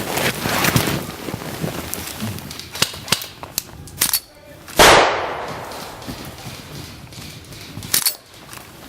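Airsoft gunfire: scattered sharp cracks of shots, with one much louder bang about five seconds in that rings out for about a second.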